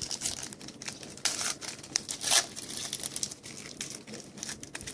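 Hockey card pack wrapper being crinkled and torn open by hand, an irregular crackle with louder rips about one and a half and two and a half seconds in.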